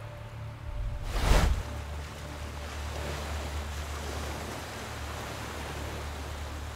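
Ocean waves with a steady low rumble, and one loud rush of water, a wave breaking, peaking about a second in.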